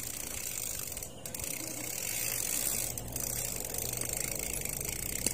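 Bicycle freewheel hub ticking rapidly as the bike coasts, over steady rolling noise.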